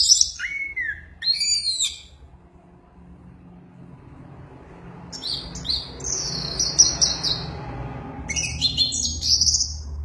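Orange-headed thrush singing in short, high, warbling phrases, with a pause of about three seconds in the middle, over a low steady background hum.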